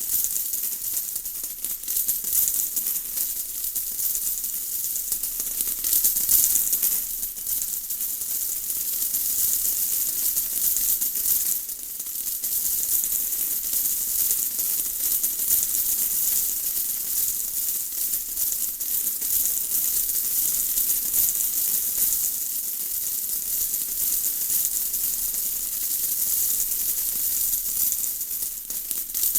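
Steady rain: a dense patter of drops with a bright hiss, swelling and easing slightly.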